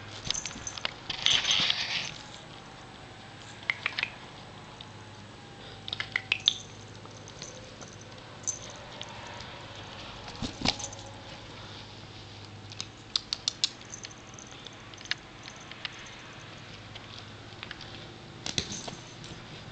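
A kitten scrambling about a fabric cat tent on a cane frame: scattered scratches, taps and rustles of claws on cloth, with a longer, louder rustle about a second in.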